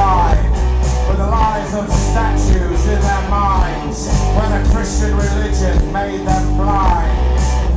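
Live rock band playing loudly: a man singing into a microphone over electric guitar, bass and drums, with cymbals crashing at a steady beat.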